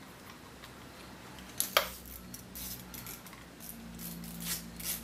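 Light metallic clicks and taps as a small steel dipstick-tube bracket and its bolt are handled and set in place against the engine block, one sharper click about two seconds in and a few quick ones near the end.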